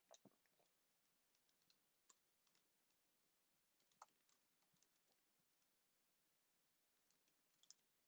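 Faint keystrokes on a computer keyboard, typed in short irregular bursts: the busiest at the very start, around four seconds in and near the end.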